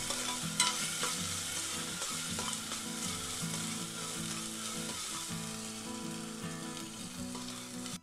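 Chopped onion and ginger-garlic paste sizzling in hot oil in a pressure cooker while being stirred, with a couple of sharp ticks from the stirring early on. This is the sauté stage, frying the paste until its raw smell is gone.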